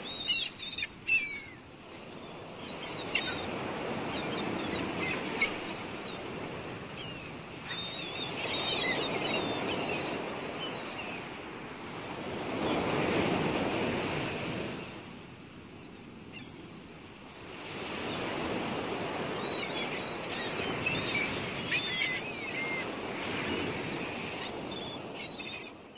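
Sea surf washing in slow swells that rise and fall every few seconds, with gulls calling over it now and then.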